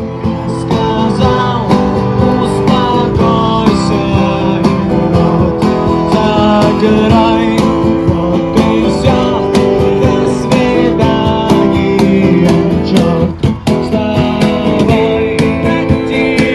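Background music led by acoustic guitar, with a steady beat.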